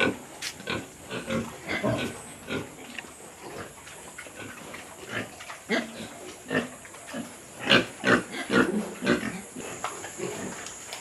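Pigs grunting and oinking in their pens: many short, irregular calls, busiest about eight seconds in.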